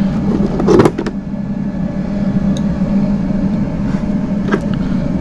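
A steady low mechanical hum, with a short clatter of knocks about a second in and a faint tick near the end.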